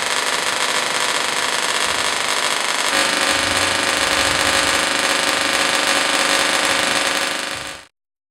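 Small Tesla coil firing, its spark streamers giving a loud steady electric buzz. The buzz changes pitch about three seconds in, then fades and cuts off just before the end.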